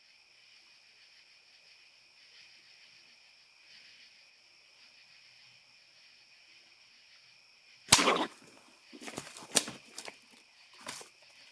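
Crickets chirping steadily; about eight seconds in, a sudden loud crack, followed by several shorter, irregular noisy bursts.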